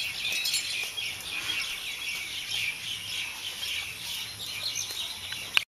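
Birds chirping: a busy, overlapping chorus of short, high calls.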